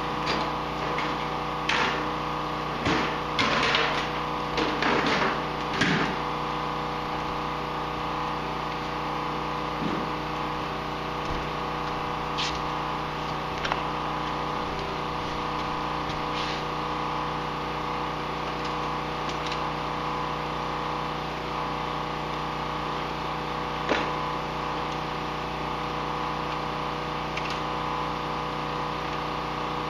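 Clicks and rattles of cable ties being pulled tight around a wire on a snowmobile, bunched in the first six seconds, then a few single clicks of hands on the plastic. A steady hum of several tones runs underneath.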